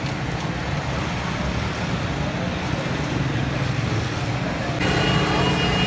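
Road traffic noise with engines running. About five seconds in, a vehicle horn starts sounding with a steady held tone.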